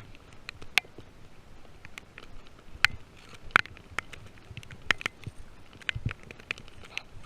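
Footsteps crunching through dry brush and leaves: irregular sharp crackles and snaps, the loudest about three seconds in.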